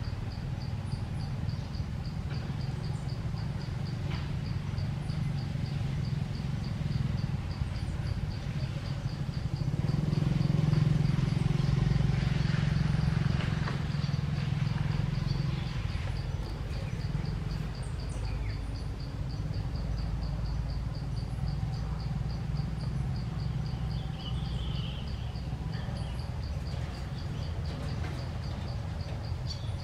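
An insect calling in a steady, evenly spaced pulse, over a low rumble that swells louder about a third of the way through.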